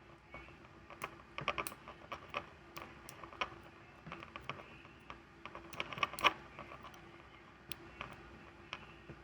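Hook pick clicking and scraping on the pin stack inside a 60 mm Tri-rhomb brass padlock, held under tension: a run of irregular sharp clicks, busiest about a second and a half in and again around six seconds.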